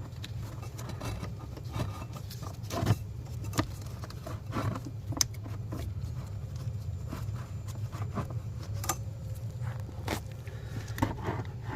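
Cabin air filter being slid into its plastic housing by hand: scattered scrapes, rustles and small plastic clicks over a steady low hum.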